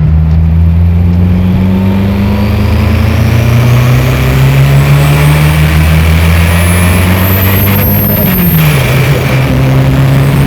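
Turbocharged VW AP engine in a Volkswagen Passat pulling hard under load, its pitch and the turbo's whistle climbing steadily for about eight seconds. The throttle then lifts for a gear change: a brief turbo flutter chatter and a sharp drop in pitch. It climbs again near the end.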